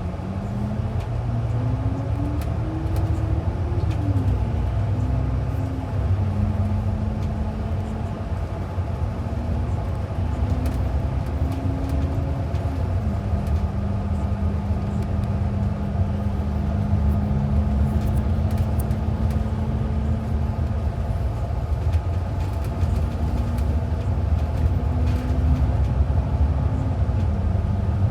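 City transit bus under way: a steady low drivetrain rumble with an engine whine. The whine climbs over the first few seconds, drops at a gear change about four seconds in, then holds mostly level with a few small steps in pitch.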